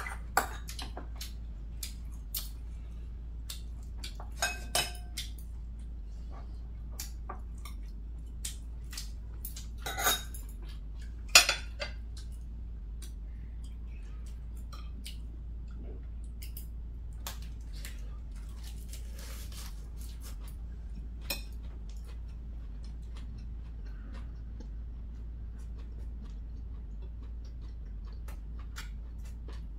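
Metal chopsticks tapping and clinking against ceramic plates and bowls during a meal: scattered light clicks, the loudest a pair about ten and eleven seconds in, over a faint low steady hum.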